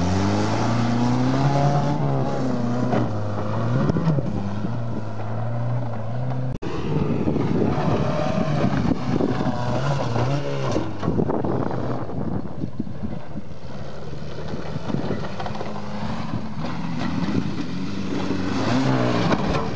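Škoda Favorit's small four-cylinder petrol engine revving as the car is driven hard over rough dirt, the pitch rising and falling again and again with the throttle. There is a brief dropout about six and a half seconds in.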